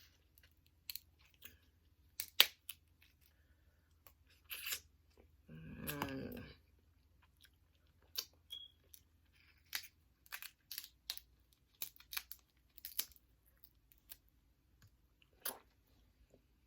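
Close-miked eating of a seafood boil: scattered sharp clicks and crunches as shellfish are cracked, torn and chewed, the loudest snap about two seconds in. A brief voiced murmur comes about six seconds in.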